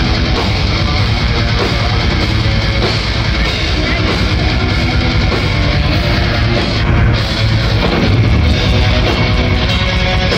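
Heavy metal band playing live at full volume: distorted electric guitars over a dense, steady, bass-heavy backing, without a break.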